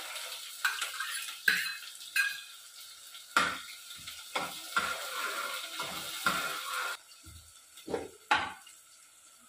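A metal spoon scraping and knocking against the inside of a pressure cooker as onions are stirred in hot oil, over a sizzle that fades as it goes. The knocks come irregularly, about one or two a second, with a couple of louder ones near the end.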